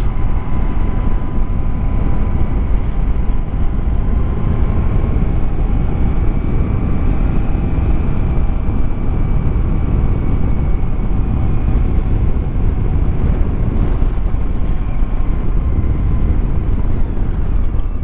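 Honda ST1100 V4 sport-touring motorcycle cruising at a steady speed: a dense, even rush of wind and road noise with the engine's faint steady hum beneath.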